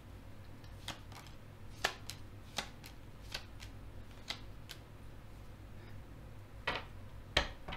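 A tarot deck being shuffled and handled: a run of irregular sharp card clicks, the two loudest near the end.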